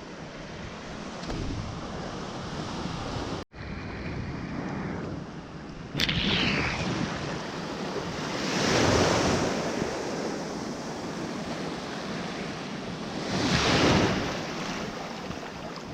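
Ocean waves washing in, swelling up twice, with wind buffeting the microphone. The sound cuts out for an instant about three and a half seconds in and comes back louder about six seconds in.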